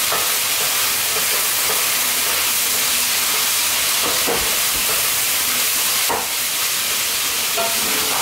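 Minced meat frying in oil in a pan on high heat: a steady sizzle.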